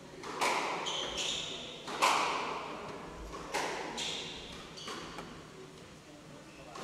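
Squash rally: a squash ball struck by rackets and hitting the walls four times, about a second and a half apart, each hit echoing around the court. Short squeaks of court shoes on the wooden floor come between the hits.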